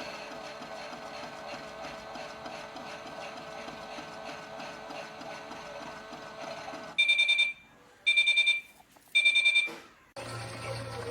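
Theo Klein 6941 toy Miele washing machine running through a wash programme with a steady rhythmic mechanical whir, then three loud high electronic beeps about a second apart, the machine's signal that the programme step is done. A new low hum starts just after the beeps.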